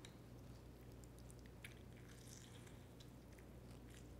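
Lemon half squeezed by hand over a bowl of guacamole: faint scattered small clicks of juice and rind. Otherwise near silence over a steady low hum.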